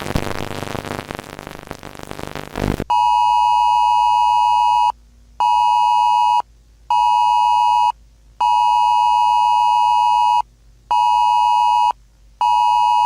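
Wireless Emergency Alert attention tone: a loud steady two-tone beep in a repeating pattern of one long and two short blasts with half-second gaps, sounding twice through, as a presidential alert comes in. Before it, a noisy wash fades away for the first few seconds.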